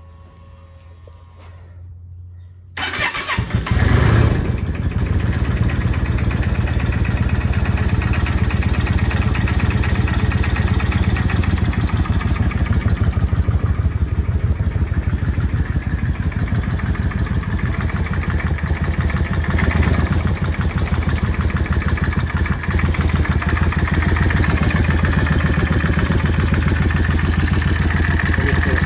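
Yamaha Drag Star XVS650 V-twin engine starting about three seconds in and then idling steadily with a dense, even beat. The owner is recording it because of an engine noise he wants diagnosed.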